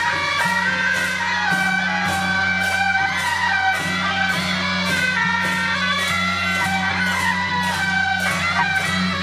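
Festive procession music with a steady beat: a melody over a sustained bass line, with a regular percussive stroke about twice a second.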